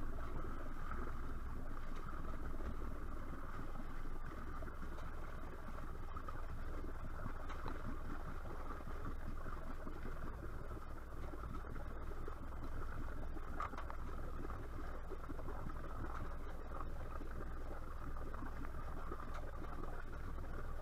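Boat engine idling steadily, with choppy water splashing against the wooden hull.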